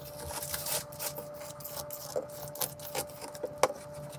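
Cordless oscillating multi-tool running with a scraper blade: a steady buzz broken by irregular rasps and clicks as the blade strips old silicone caulk from the granite countertop edge.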